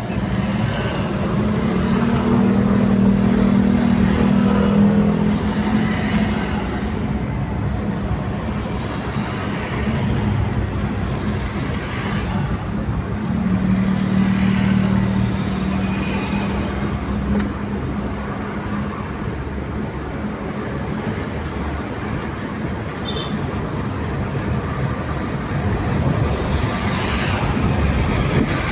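Road traffic passing on a highway, the low drone of heavy vehicle engines swelling and fading as vehicles go by.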